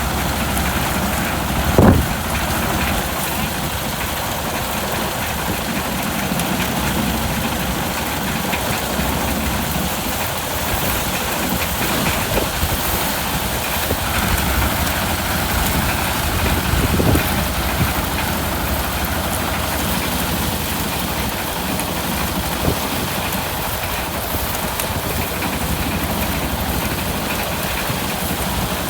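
Engine of a rice harvesting machine running steadily, with a couple of brief sharp knocks.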